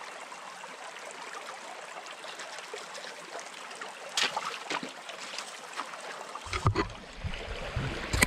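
Stream water running steadily, with a few sharp clicks partway through and low rumbling bumps near the end.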